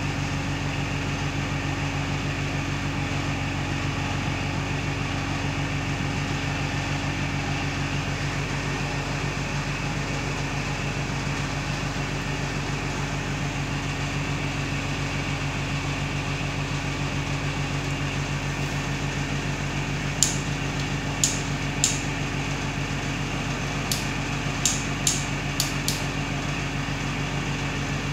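Steady low mechanical hum throughout. About two-thirds of the way through, small sharp clicks from modular plastic switch plates being handled: three spaced about a second apart, then five in quicker succession.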